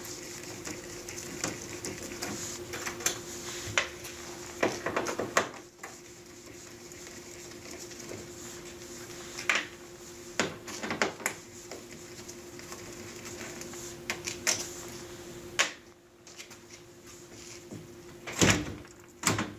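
Scattered clicks and knocks of tools and metal parts being handled as screws are taken out of an oven door, with several louder knocks near the end, over a steady faint hum.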